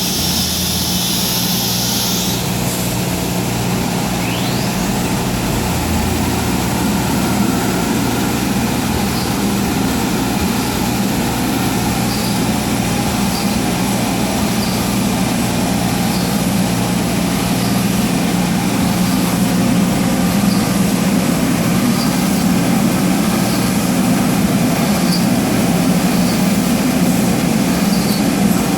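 CNC router running: a steady machine drone with a low hum. A high hiss cuts off about two seconds in, and faint ticks come every second or two after that.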